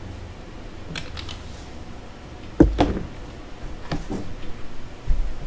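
A few scattered clicks and knocks from handling at a craps table as the dice are gathered up, the loudest a knock with a dull thump about two and a half seconds in.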